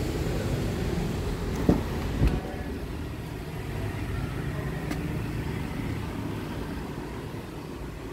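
Steady low vehicle rumble, with two sharp clicks about two seconds in, half a second apart, as the Honda CR-V's front door is unlatched and swung open.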